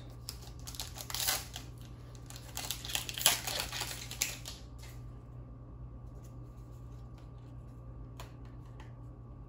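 Foil booster-pack wrappers crinkling and trading cards clicking as they are handled, a busy run of soft crackles for the first four seconds or so, then only a few faint card flicks over a low steady hum.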